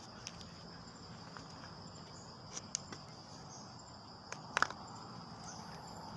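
Steady high-pitched insect chorus in the background, with a few short clicks and knocks of handling; the loudest is a quick cluster of clicks about four and a half seconds in, as the bamboo slingshot is laid down on a wooden stump.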